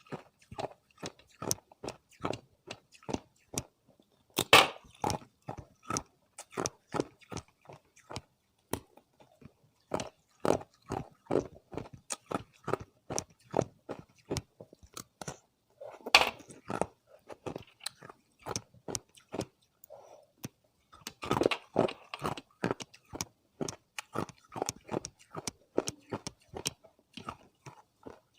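A person biting and chewing hard ice close to the microphone: a steady run of sharp crunches, a few a second, with several louder bites breaking off fresh pieces.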